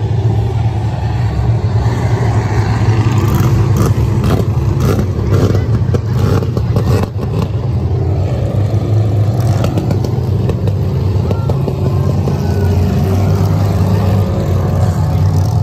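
Several dirt-track stock cars' engines running hard around a dirt oval, a continuous loud engine drone that swells and fades as the cars pass. A run of sharp clicks and knocks sounds in the middle.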